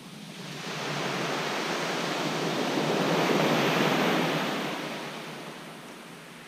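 A sea wave breaking and washing up a shingle beach: a rush of surf that swells over a few seconds, peaks in the middle, then fades away.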